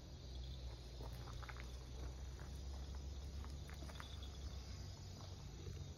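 Soft, scattered crunching and rustling of footsteps on dry leaves and gravelly soil as a leashed cat and the person walking it move along, over a low steady rumble.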